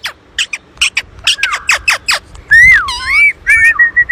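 Pet parakeets calling: a quick run of short, sharp, downward-sweeping squawks, then louder, longer whistled calls that swoop down and back up in pitch.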